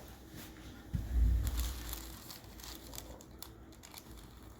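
Rustling and crinkling as hands massage the neck muscles of a patient lying on a treatment table, with a low bump about a second in.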